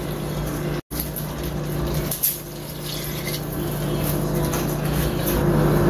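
Hot water poured from a steel pot into a pressure cooker of cooking chicken curry, a hissing splash over a steady low hum. The sound cuts out for an instant about a second in.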